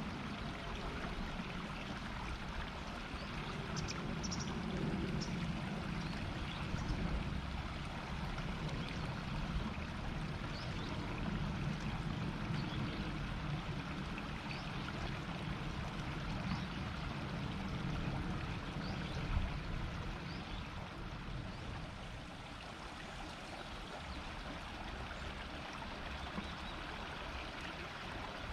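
River water flowing over stones, a steady murmur with no breaks.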